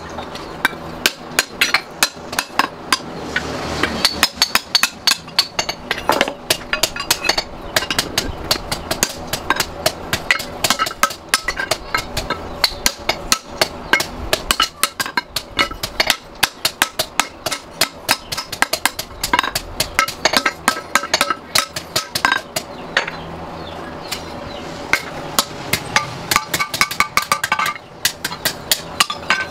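Hand hammer striking a steel axe head on an anvil, in quick repeated blows with short pauses, each blow ringing metallically.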